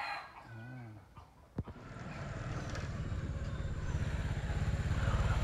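Motorbike engine running while riding. It comes in about two seconds in and grows steadily louder.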